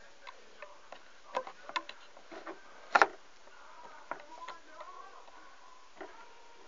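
Irregular light clicks and snaps of a loom-band hook and rubber bands against the pegs of a plastic band loom, with the loudest, a sharp double click, about three seconds in.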